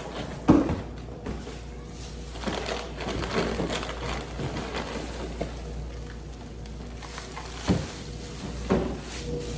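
A cardboard product box being handled and opened: a sharp thump about half a second in, then rustling and scraping, and a few more knocks near the end.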